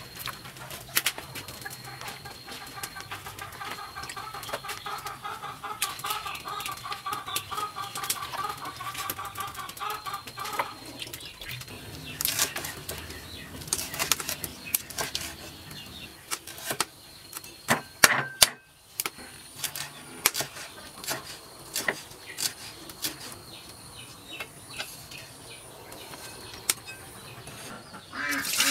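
A bird calls in a long pulsing series through the first ten seconds. After that a knife chops on a wooden chopping board in sharp, irregular knocks, cutting lemongrass stalks.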